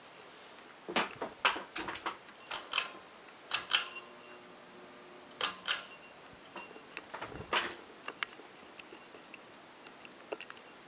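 Ceiling fan pull chain being tugged and swinging: an irregular run of sharp clicks and light metallic taps, thinning to a few faint ticks near the end, over a faint steady fan hum.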